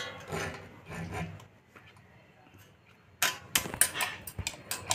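Ceiling fan's metal downrod and safety wire being handled and fitted together: a quiet stretch, then a quick run of sharp clicks and knocks starting about three seconds in.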